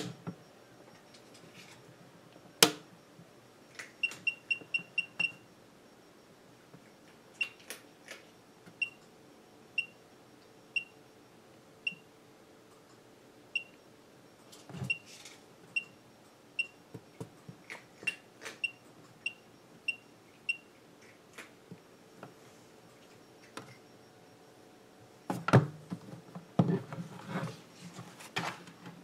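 SINO SDS6-2V digital readout's keypad beeping as its buttons are pressed: short high beeps, a quick run of five, then single beeps about a second apart, with faint button clicks. Near the end, knocking and rustling as the unit is picked up and turned over.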